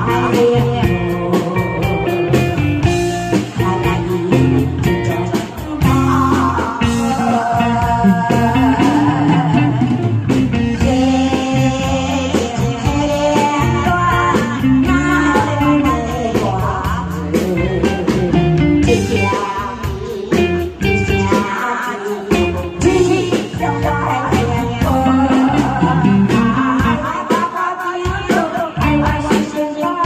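A woman singing a ballad through a microphone over amplified backing music with electric guitar.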